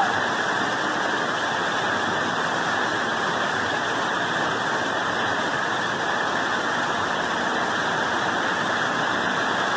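Muddy floodwater rushing down a street in a fast torrent: a steady, even rush of water with no breaks.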